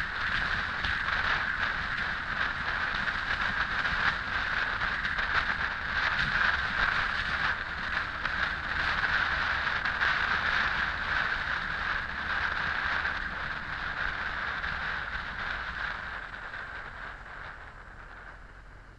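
Honda X4 motorcycle under way in traffic: a steady rush of wind and riding noise on the camera's microphone, with the inline-four engine underneath. The noise dies down over the last few seconds.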